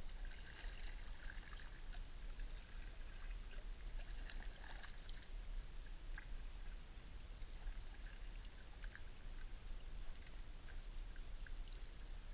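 Double-bladed kayak paddle dipping into river water stroke after stroke: faint splashes and drips off the blades, with small scattered ticks, over a low steady rumble.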